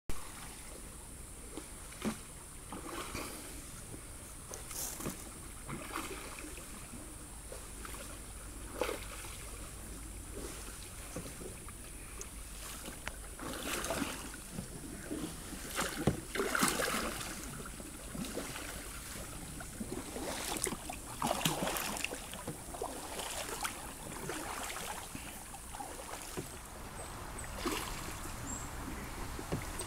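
Canoe paddles dipping and pulling through calm water in irregular strokes, with splashes and drips, over a steady high-pitched hiss.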